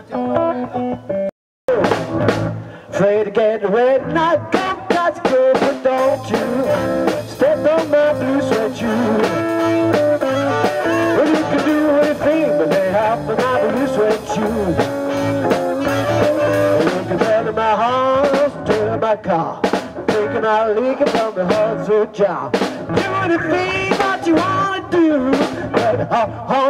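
Live blues band playing: a harmonica carries the bending lead line over electric guitars, bass and a drum kit keeping a steady beat. A few guitar notes come first, then after a sudden brief dropout about a second and a half in, the full band is playing.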